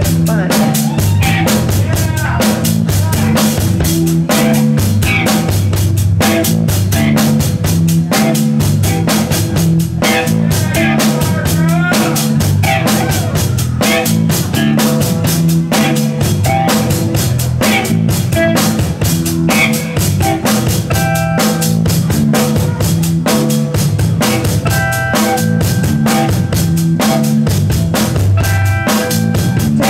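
A live rock band plays an instrumental groove: a drum kit keeps a steady beat under a repeating bass-guitar riff, with electric guitar lines on top.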